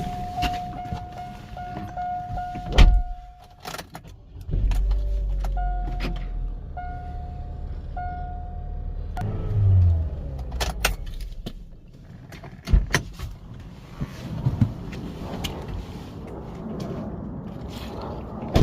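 A car's warning chime, a steady tone at first and then about three evenly spaced beeps, with sharp clicks and knocks. A low electric-motor hum starts and stops in the middle, running for about four seconds.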